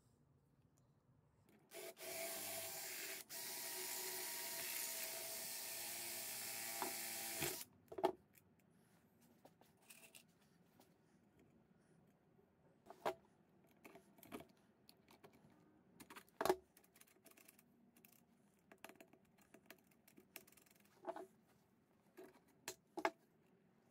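A steady grinding noise for about six seconds, with one short break, then scattered sharp clicks and knocks of small metal parts and tools handled on a wooden workbench.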